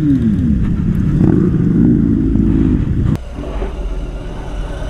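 Motorcycle engine running at low speed. Its pitch falls at the start as the throttle closes, then holds steady with small rises and falls. About three seconds in it cuts off abruptly with a click, leaving a quieter rumble behind.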